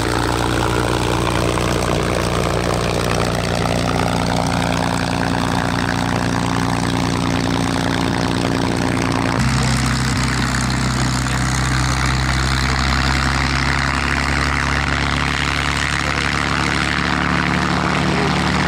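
Packard Merlin V-12 engine of a P-51D Mustang running steadily at low power as the plane taxis, with a propeller drone. The engine note changes abruptly about nine seconds in.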